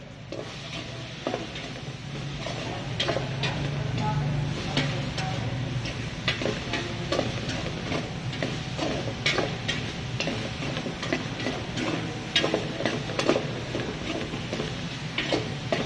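Metal spoon stirring chayote strips frying in oil in a metal pot, with many irregular clinks against the pot over a steady sizzle.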